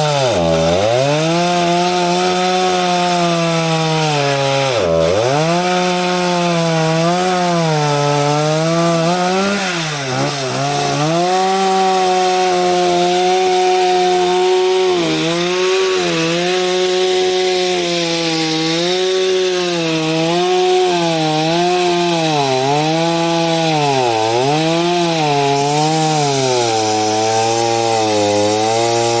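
Chainsaw running at high speed and cutting wood, its engine pitch dipping sharply and recovering again and again as the chain bogs under load.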